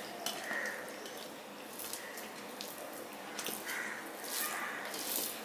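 Wet squishing and soft clicks of cooked rice being mixed by hand on a steel plate, with the sounds of chewing.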